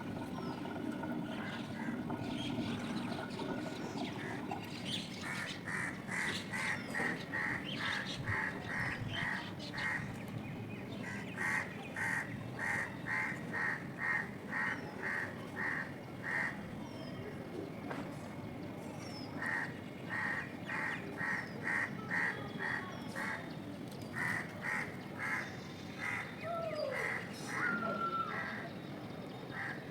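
Repeated animal or bird calls, about two a second, in several long runs, over a steady background hiss; near the end a couple of calls glide in pitch.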